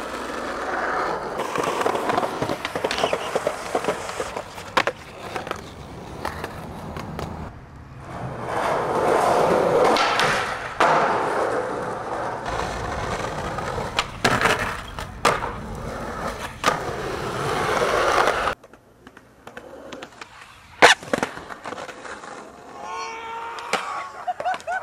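Skateboard wheels rolling loudly over rough pavement and concrete, broken by sharp cracks of the tail popping and the board landing. A sudden cut about three quarters of the way through brings a quieter stretch with one more sharp crack.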